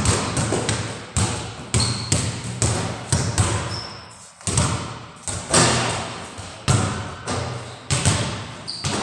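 Basketballs bouncing on a hard floor, a dozen or so irregular thuds, each with a short echoing tail.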